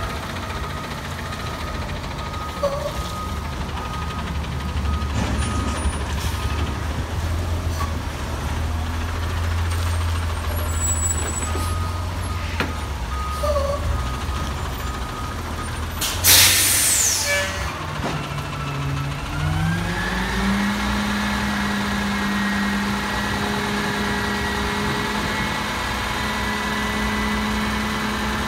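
Autocar WX64 roll-off truck's diesel engine running, with a short, loud air-brake hiss about two-thirds of the way through. The engine then speeds up and holds a steady higher speed as the hydraulic hoist begins tilting the roll-off container up to dump it.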